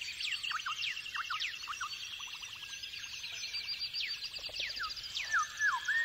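Recorded dawn chorus of many birds playing as the background track: overlapping chirps and twitters, a fast trill near the middle, and repeated downward-sweeping whistles.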